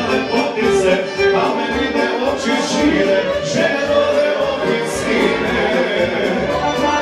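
Live music with singing; the singer uses a microphone.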